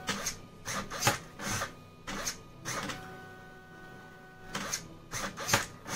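Homemade automatic wire cutter cycling: the stepper motor turning a 3D-printer extruder feed gear gives a steady whine of several tones as it pushes wire through, about halfway through. Before and after the whine come clusters of short buzzy bursts as the servo swings the cutting blade.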